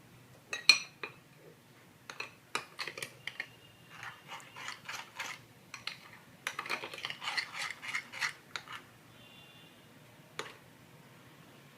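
A kitchen utensil clinking and scraping against the dish while stirring chocolate cake batter to break up lumps, in irregular bursts of clicks: a sharp clink about a second in and a busy stretch of rapid scraping past the middle.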